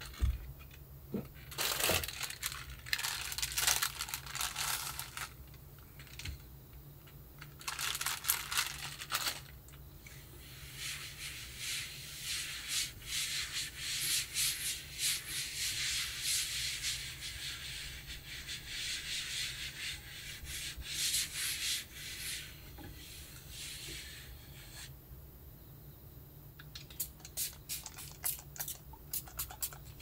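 A cloth rubbed back and forth across a laminate tabletop in long wiping stretches, after a single knock at the start. Near the end, a quick run of short sharp clicks.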